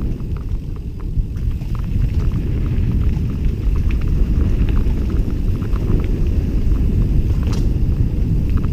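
Wind buffeting a helmet-mounted camera's microphone during a mountain-bike descent on a dirt trail, a steady low rumble, with scattered small clicks and rattles from the tyres on gravel and the bike, and one sharper click near the end.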